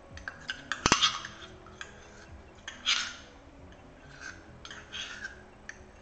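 A metal spoon clinking and scraping against a stainless steel measuring cup while scooping out sticky molasses, with a sharp clink about a second in and scattered light taps and scrapes after.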